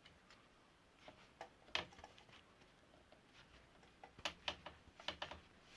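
Faint metal clicks and ticks from a tool working the adjustable cup of a vintage cup-and-cone bicycle bottom bracket loose. There are a few scattered clicks, then a quick run of several about four seconds in.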